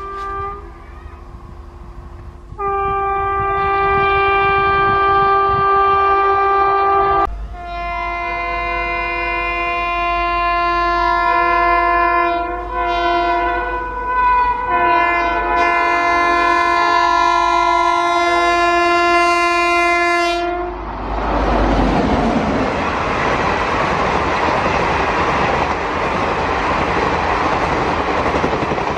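Electric locomotive's air horn sounding long chords of several notes at once, sounded repeatedly with short breaks and changes of pitch. In the last third, an express train's locomotive and coaches pass close by at speed, giving a loud, steady rushing noise of wheels on the rails.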